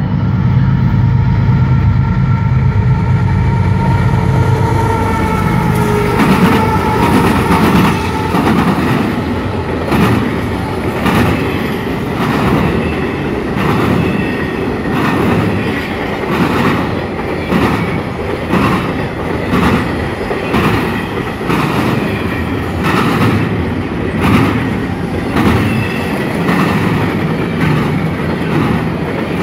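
CSX intermodal freight train passing under power. The diesel locomotive's engine drone is loudest for the first several seconds, then the double-stack cars roll by with a steady rumble and sharp wheel clacks about once a second as the wheels cross the diamond.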